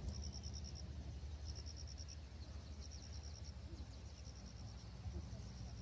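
Insects chirping in short trills of rapid high pulses, repeated every second or so, over a steady low background rumble.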